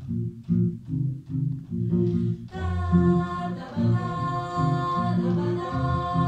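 Mixed a cappella vocal ensemble singing a song intro: low voices keep up a rhythmic, bouncing bass line of short notes, and about two and a half seconds in, the upper voices join with held chords over it.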